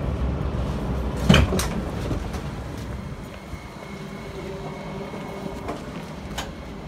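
Electric passenger train standing at the platform, its equipment running with a steady low hum. There is a single sharp knock about a second in.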